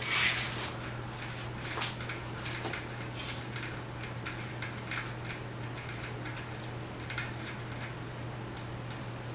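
Scattered small metallic clicks and taps of bolts and tools being handled while loosening a bicycle wheel's bolts, with a brief scrape at the start, over a steady low hum.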